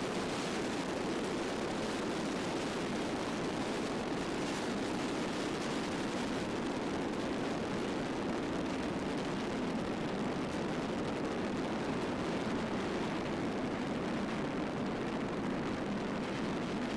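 Steady in-cabin drone of a Zenith STOL CH 750's Jabiru 3300 six-cylinder air-cooled engine and propeller in flight on final approach, holding an even level.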